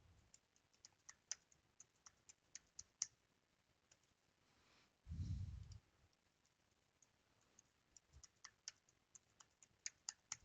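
Faint computer keyboard keystrokes, typing in two quick runs separated by a pause. A brief low rumble sounds about five seconds in.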